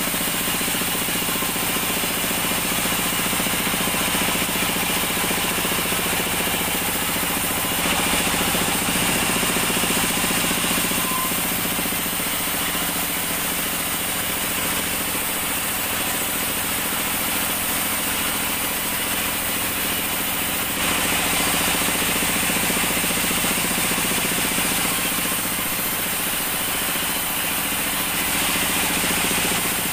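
A sawmill band saw running steadily and ripping an acacia plank fed along its table: a continuous machine hum with the hiss of the blade in the wood, a little louder about eight seconds in and again about twenty-one seconds in.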